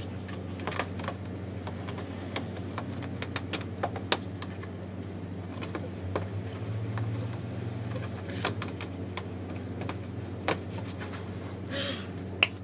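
Irregular light clicks and taps of hand work on a Honda PCX scooter's plastic floor panel, over a steady low hum.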